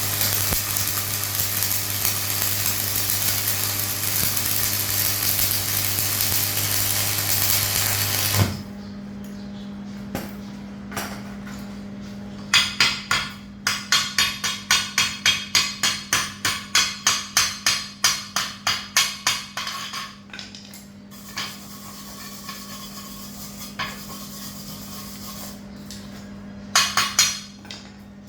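Welding arc hissing and crackling steadily over a low electrical hum, cut off suddenly about eight seconds in. The welding machine's hum then carries on under a quick run of sharp hammer strikes on metal, about three a second for several seconds, with a few lone knocks after: typical of chipping slag off the fresh weld.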